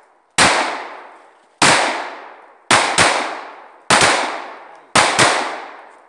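Pistol shots from two shooters firing at once: about seven shots at irregular spacing, some coming in quick pairs, each trailing off in a long fading echo.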